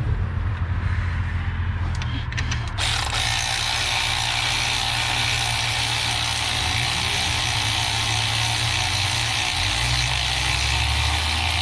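Ratchet wrench clicking rapidly and steadily, starting about three seconds in, as the alternator's mounting bolts are run in and tightened.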